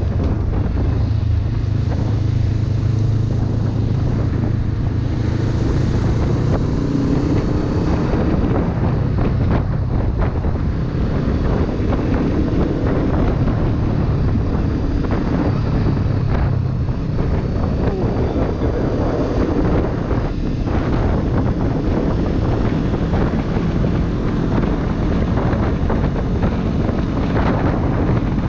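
Steady wind buffeting the microphone of a helmet-mounted camera, over the running engine of a 2016 Honda CB500F, a parallel twin, as the motorcycle rides along at a constant pace.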